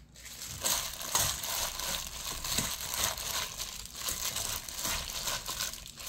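Hands tossing and squeezing blanched small green onions coated with chili flakes and perilla oil in a stainless steel bowl, making an irregular, continuous rustle that starts just after the beginning.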